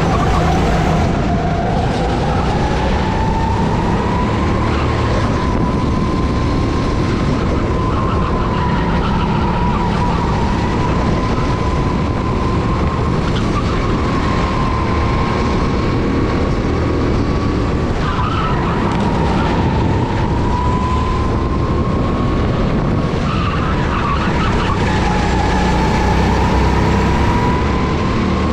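Go-kart engine running at speed through a lap, its pitch climbing along the straights and dropping briefly into each of several corners before picking up again.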